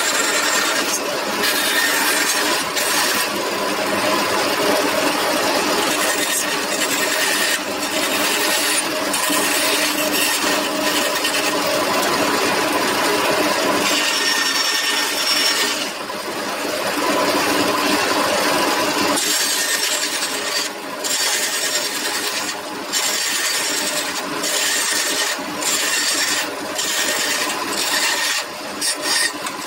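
Bandsaw running with its blade cutting through a wooden board, a steady rasping saw noise over the motor's hum. In the last third the cutting sound drops away briefly several times.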